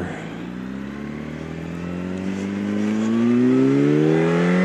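Yamaha R1's inline-four engine accelerating under throttle, its revs climbing smoothly and steadily and growing louder.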